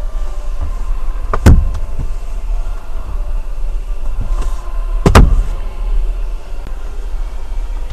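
Two sharp thumps, about a second and a half in and again about five seconds in, over a steady low rumble inside a car's cabin, as the rear-seat headrests are handled.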